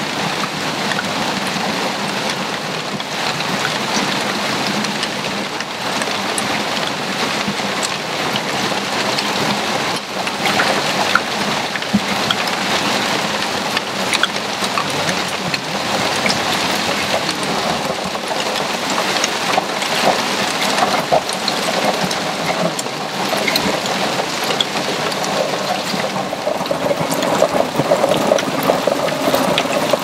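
Hail shower pelting down: a steady loud hiss of falling hail, peppered with many small sharp ticks of hailstones striking, the ticks growing denser and louder near the end.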